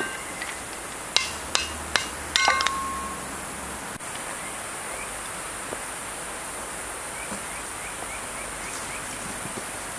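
Dry, freshly split kindling sticks knocking and clattering together as they are gathered from a cast-iron Kindling Cracker: five or so sharp wooden knocks with a brief ring, about a second in and over the next two seconds, over a steady hiss.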